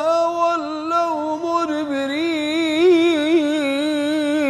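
Male reciter's voice chanting Quran recitation in the Iraqi style, drawn out into one long, ornamented melismatic note that wavers in pitch without a break, growing brighter about two seconds in.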